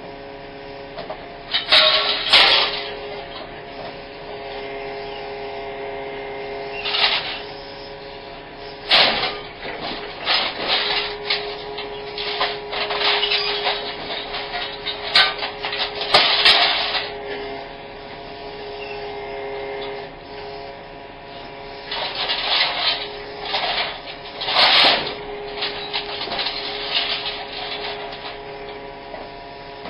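Excavator engine and hydraulics running with a steady hum while a small excavator-mounted scrap shear works a pile of scrap metal, giving repeated bursts of scraping and clanking metal, loudest about two seconds in, around sixteen seconds and around twenty-five seconds.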